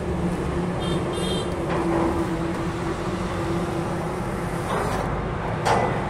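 Vehicle engine running steadily, heard from inside a car, with a couple of short knocks near the end.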